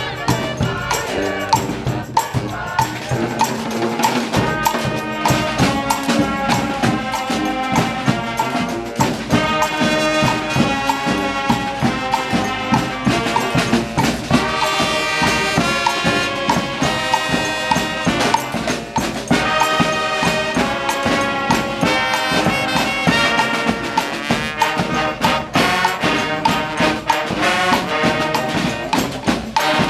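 Community street band playing: horns in harmony over a steady percussion beat.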